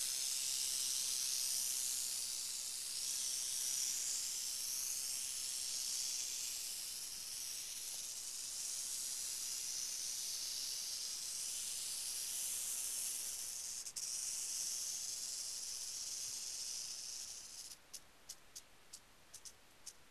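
Western rattlesnake (Crotalus oreganus) rattling its tail as a defensive warning: a steady high buzz. Near the end the buzz slows into separate clicks, which then quicken again.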